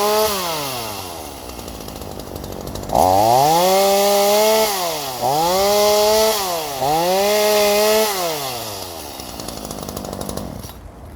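Two-stroke chainsaw engine dropping from full revs to idle, then revved hard to a high steady pitch three times in a row, each burst lasting about a second, before falling back to idle and going quiet near the end.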